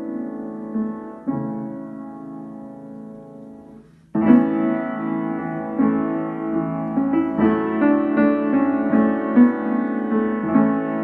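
Upright piano playing a hymn in full chords. A held chord fades away, there is a brief break just after four seconds, then the playing starts again louder and carries on.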